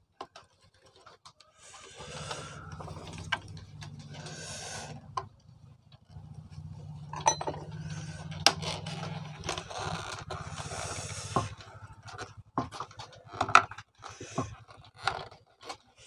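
Plastic coffee grinder housing and motor parts scraping and clicking as they are pried apart by hand, with several rough scraping stretches and sharp clicks over a low hum that comes and goes.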